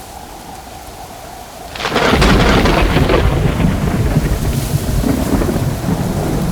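A thunderclap cracks suddenly about two seconds in, then rolls on as a low rumble over steady rain.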